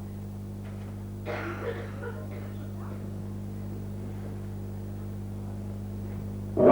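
Steady low electrical hum in a lull between musical numbers, with a brief faint murmur of noise about a second in.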